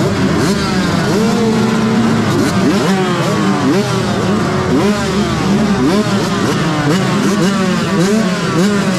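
A line of motocross bikes revving at the start gate, among them a Yamaha YZ125 two-stroke: many engines blipped up and let fall back again and again, overlapping, over a steady idle.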